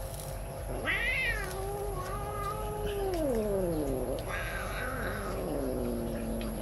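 Domestic cat giving two long, drawn-out growling yowls while eating. The first wavers and then slides down in pitch; the second is shorter and lower. It is a food-guarding warning to the other cat beside it.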